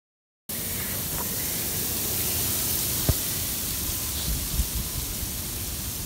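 Snowstorm wind blowing hard through bare trees, a steady hiss with a low, unsteady rumble of wind on the microphone. It starts abruptly about half a second in. There is one brief knock about three seconds in.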